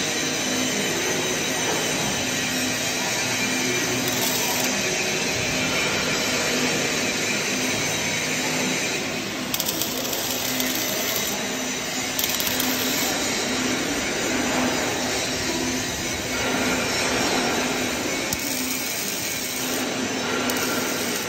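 Oxy-fuel gas torch flame burning with a steady hiss as it heats a steel beam to straighten weld distortion, over a faint steady hum.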